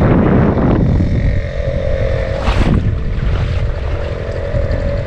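A small engine running steadily, with wind noise on the microphone and a short gust of noise about two and a half seconds in.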